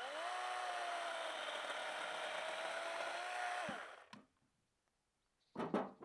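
Chainsaw run up to full speed for about four seconds: its whine rises as it spins up, holds steady, then falls and stops abruptly. A brief thud follows near the end.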